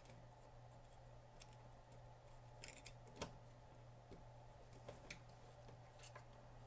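Faint scattered clicks and ticks of the Fluke 88 meter's plastic parts as the LCD is pressed back into the housing, about half a dozen, the loudest about three seconds in, over a steady low hum.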